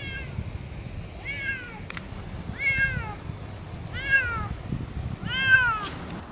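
Siamese cat meowing five times, about every second and a half, each meow rising and then falling in pitch; the last one is the loudest and longest.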